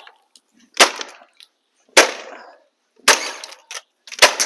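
Cheap plastic pressure washer being smashed: four hard cracking blows about a second apart, each followed by a short rattle of breaking plastic.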